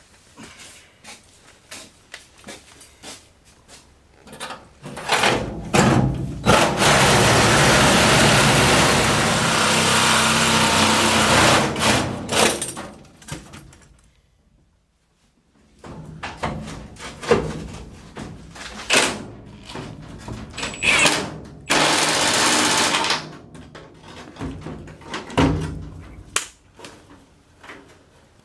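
Reciprocating saw cutting through the sheet metal of a pickup box in two long runs, the second shorter, with clanks and knocks of metal and tools between the cuts.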